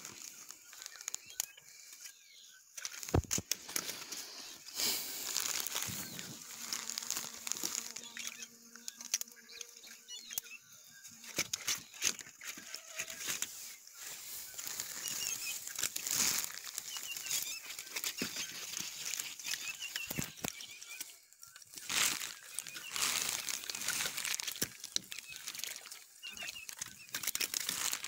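A wet nylon cast net being handled and untangled by hand on sand: irregular rustling, crinkling and clicking of the mesh and its weighted edge as fish are picked out, with several sharper flaps and knocks.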